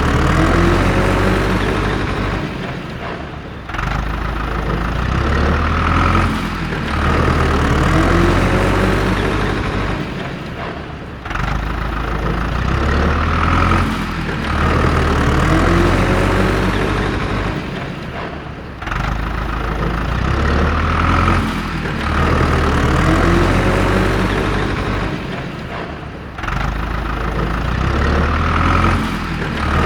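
Truck engine sound running and revving, the same rise and fall repeating in a loop about every seven and a half seconds, with a short dip in level between repeats.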